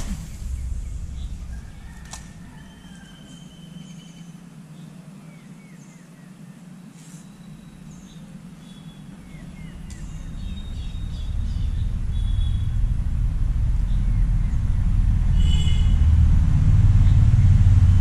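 Low rumble of traffic crossing the concrete road bridge overhead. It dies down, then swells steadily over the last several seconds, with scattered short bird chirps above it.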